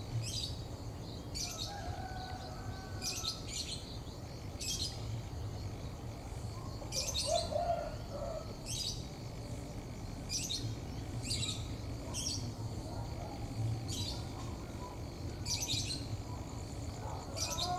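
Small birds chirping: short, high, sharp chirps, often in pairs, every second or two. Beneath them is a low steady hum, which may be the engine of the approaching diesel locomotive.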